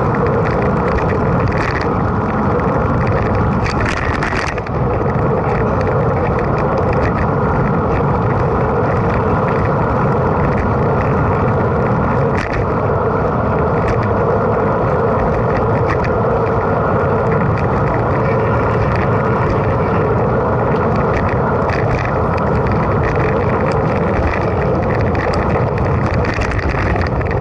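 Mountain bike ridden at speed: a steady rush of wind and tyre noise, with a few brief rattles.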